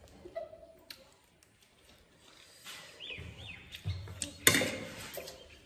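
People eating spicy instant noodles with forks: light clicks of forks on plates, then noodles being slurped, the loudest a sharp slurp about four and a half seconds in. Two short chirp-like squeaks come about three seconds in.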